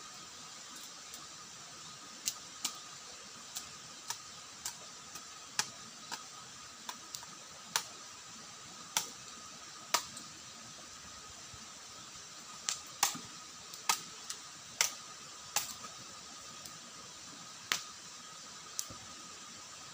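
Machete chopping, a series of about twenty sharp, short knocks at irregular intervals, some in quick pairs, over a steady hiss.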